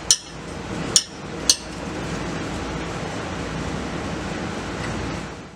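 Three sharp metallic clicks, the second and third about a second and then half a second after the first, over a steady background hum; the sound cuts off to silence near the end.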